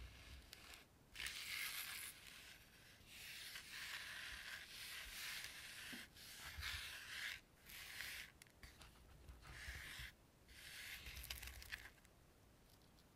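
Close-miked scratching and rubbing on a small object, in about six strokes of a second or two each with short pauses between them.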